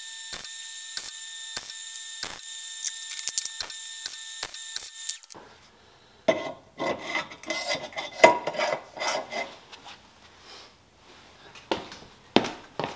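MIG welder laying a tack weld on a steel mini bike frame part: a steady crackling hiss full of sharp clicks for about five seconds that cuts off suddenly. After a short pause come irregular clanks and rustling as the part and gloves are handled, with a couple of sharp knocks near the end.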